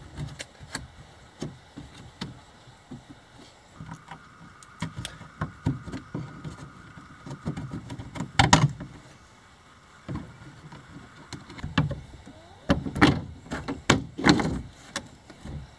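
Clicks and knocks of a boat's rack-and-pinion steering worked by hand, its newly replaced pinion gear running the rack along under the gunwale, with a few louder knocks about halfway through and near the end.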